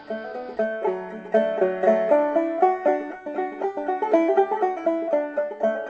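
Outro music: a fast banjo tune, quickly plucked notes in a bluegrass style.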